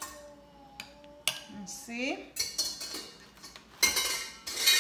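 Kitchen clatter from hands working herb butter out of a glass bowl and onto a turkey in a disposable aluminium foil roasting pan. A few sharp clinks come in the first second and a half, then crinkling rattles of the foil pan, loudest near the end.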